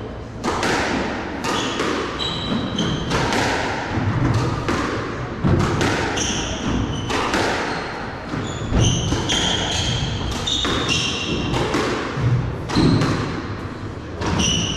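Squash rally: the ball struck hard by rackets and smacking off the court walls in an irregular series of sharp hits, with court shoes squeaking in short high-pitched bursts on the wooden floor.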